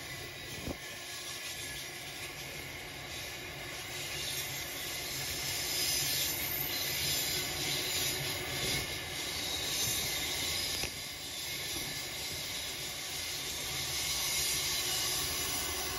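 Freight train's covered hopper wagons rolling past on the rails: a steady rush of wheels on track that grows a little louder about six seconds in.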